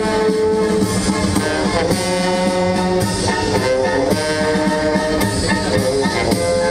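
Brass band playing a tune, held brass notes over a steady drum beat.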